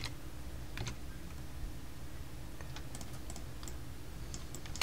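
Sparse, irregular clicks of a computer keyboard and mouse, one or two at a time, over a faint steady low hum.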